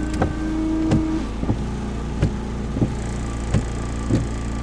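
Windshield wipers sweeping back and forth, with a short thump about every two-thirds of a second, over the steady hum of the 2007 Ford Focus's 2.0-litre Zetec four-cylinder idling, heard from inside the cabin. A short steady whine sounds in the first second.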